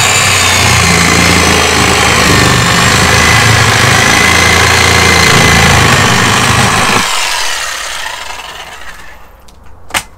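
Corded power saw cutting through the fibreglass-covered plywood hull of a boat, running steadily with a high whine that wavers. About seven seconds in it runs down over a couple of seconds, and a few sharp cracks follow near the end.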